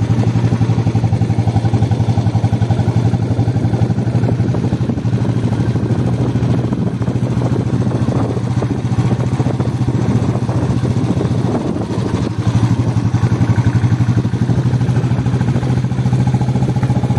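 Royal Enfield Bullet's single-cylinder four-stroke engine running steadily under way, its firing pulses coming as a rapid, even thump. The level dips briefly about twelve seconds in, then picks up again.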